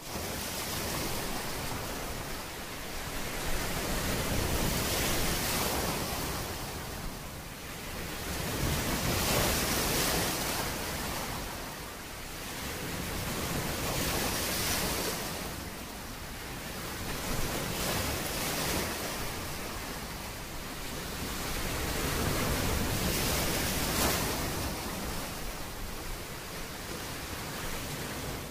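Ocean surf breaking and washing up a beach, swelling and ebbing about every four to five seconds.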